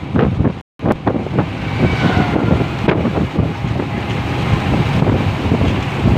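Wind buffeting the microphone over a steady low rumble, broken by a brief gap of silence under a second in.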